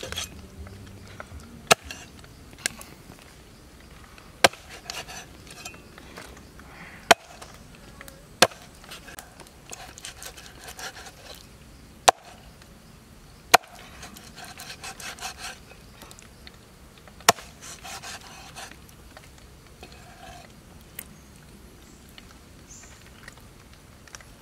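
Cleaver chopping eel on a wooden chopping board: about nine sharp knocks at irregular intervals, with scraping and rubbing of the blade and the flesh against the board between chops.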